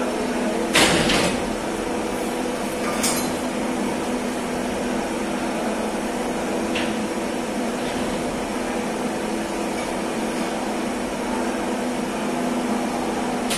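Steady drone of running machinery, with a sharp metallic clank about a second in, another about three seconds in, and a lighter tap near seven seconds.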